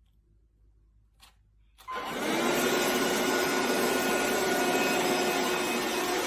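An electric motor appliance switched on about two seconds in, then running with a steady whirring rush and a faint steady whine.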